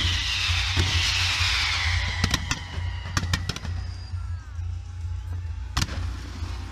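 Fireworks display: fountains hissing and crackling, with whistles falling in pitch during the first two seconds. Sharp bangs come in a cluster about two to three and a half seconds in, and a louder one near the end.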